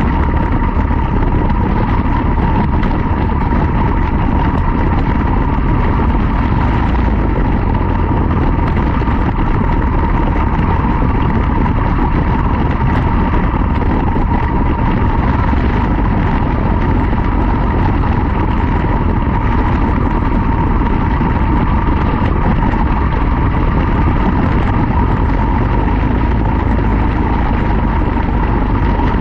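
Quarter midget race car's single-cylinder Briggs & Stratton Animal engine running hard at steady revs, heard onboard, with a strong low rumble under it.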